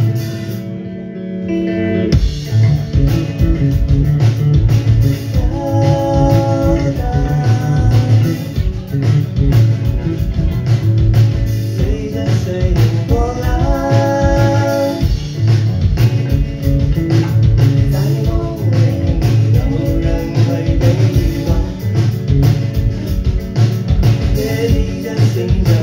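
A live band of electric guitar, bass guitar and drum kit playing loudly. After a brief sparse moment, the full band comes in about two seconds in, with busy drumming under held melodic guitar lines.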